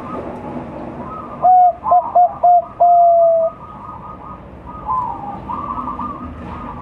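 Young Bangkok-type zebra dove (perkutut) cooing: one short note, three quick notes, then a long held note, loud and clear. Other birds chatter more quietly around it.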